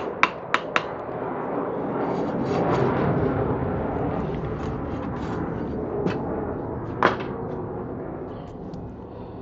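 Military jet flying over: a loud rumbling roar that builds to a peak about three seconds in, then slowly fades. A few sharp clicks near the start and a louder one about seven seconds in.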